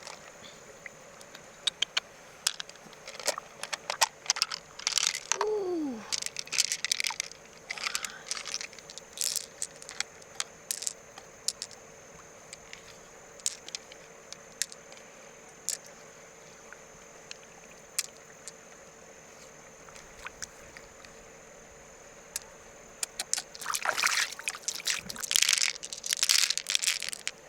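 Irregular handling noises: scattered sharp clicks, crunches and scrapes, thinning out in the middle, then a dense run of crackling, rustling bursts near the end.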